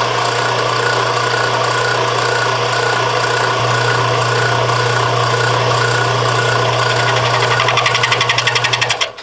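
Milling machine spindle running with an end mill in it as the cutter is brought down to touch off on the top of the work: a steady motor hum under a dense whirring machine noise. A fast pulsing comes in near the end, and the sound cuts off suddenly about nine seconds in.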